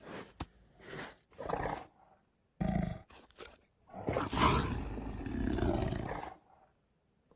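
Recorded tiger roars, such as Google's 3D AR tiger plays: a few short growls, then one long roar about four seconds in, the loudest.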